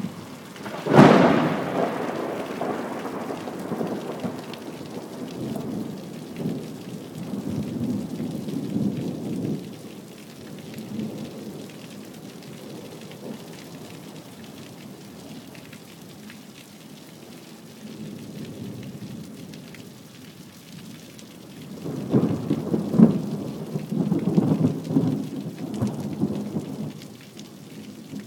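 Thunder over steady rain: a sharp crack about a second in that rolls off into a long rumble, then a second long rumble near the end.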